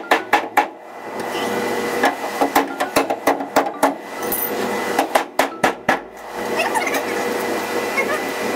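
Rapid hammering knocks from a long steel bar driven against a wooden block on the car's trunk-opening sheet metal, about five blows a second in three short bursts. A steady noise takes over for the last couple of seconds.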